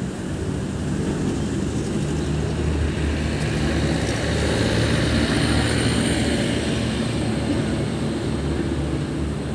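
City street traffic ambience: vehicle engines running steadily, with one passing vehicle that grows louder toward the middle and then fades.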